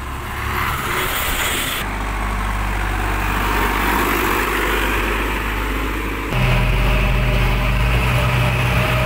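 Diesel engines running, in three cut-together shots: a bus going by, then a Caterpillar 424B backhoe loader running near the microphone, then, from about six seconds in, a louder, steady engine drone heard from the cab of a JCB backhoe on the move.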